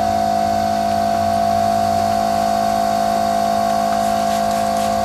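Small air compressor running steadily with an even, constant hum, filling a motorcycle rear tire to seat the bead, which has not yet seated.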